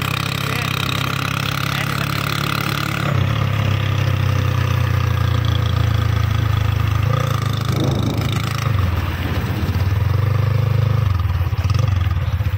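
A small single-cylinder motorcycle engine, the Kawasaki Boxer's, running steadily as the bike cruises along the road, its note rising and getting louder about three seconds in, with wind rushing over the microphone.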